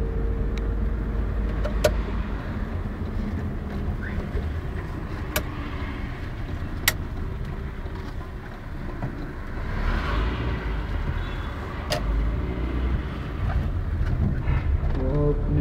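Car interior noise while driving: a steady low engine and road rumble, with a few sharp clicks or knocks.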